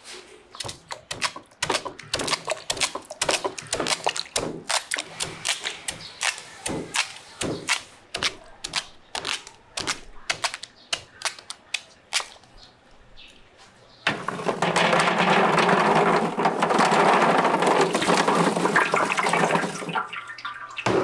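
A knife chops chunks off peeled purple sweet potatoes held over a basin of water, making rapid, irregular sharp clicks several times a second. About fourteen seconds in, this gives way to a steady rush of water for about six seconds.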